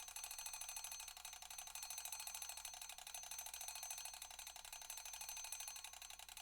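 Mechanical alarm clock ringing continuously, its bell struck in a rapid, even rattle of hammer blows with a steady metallic ring over the top.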